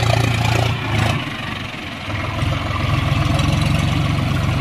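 John Deere 4WD tractor's diesel engine running; its note drops away about a second in, then builds back up and runs steadily.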